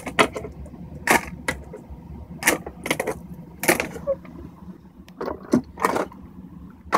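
Irregular clinks and knocks of small hard objects being moved about and set down, about ten in all, with handling noise from the phone.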